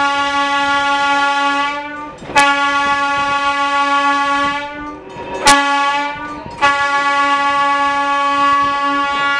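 Old streetcar under way: a steady whine with many overtones sounds in three long stretches, each broken off and followed by a sharp click before the next begins.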